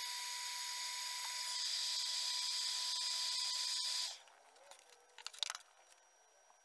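Heat gun running, a steady hiss of blowing air with a steady whine, switched off about four seconds in. A few light clicks follow.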